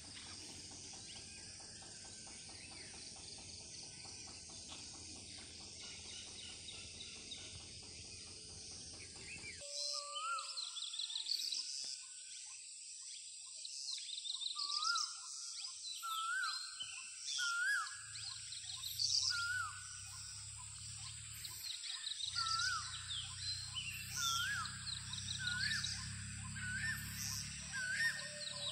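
Outdoor ambience of birds and insects. At first a steady hiss carries a fine insect trill. After a cut, a bird repeats a short rising-and-falling call about once a second, with higher chirps from other birds over it and a steady high insect tone, and a low rumble joins in over the second half.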